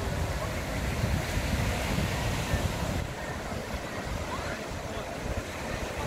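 Sea surf breaking and washing onto a sandy beach, with wind buffeting the microphone; the buffeting eases about halfway through.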